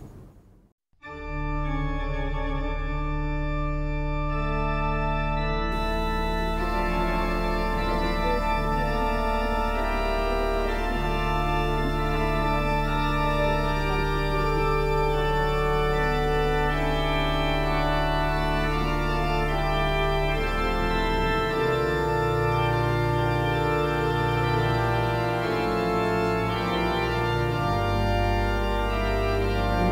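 Organ music: slow, sustained chords over deep held bass notes, starting about a second in after a brief gap.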